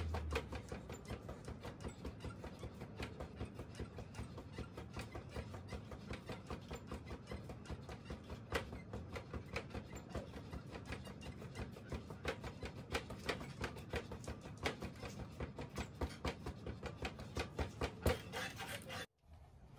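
Gloved fists striking a freestanding reflex punching ball on a spring pole stand in a quick, even rhythm, about four hits a second. The hits stop abruptly near the end.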